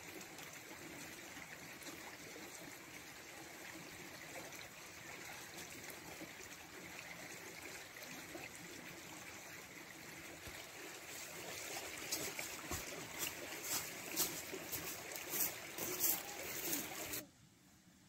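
Shallow stream trickling and flowing steadily. From about twelve seconds in, a run of sharp crackles sits over the water and is the loudest part; near the end the sound drops away abruptly.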